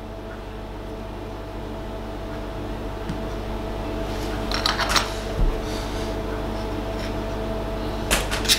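Metal spoons clinking and scraping against a glass mixing bowl and a muffin tray as cake batter is spooned out, a few clicks about halfway through and again near the end, over a steady appliance hum.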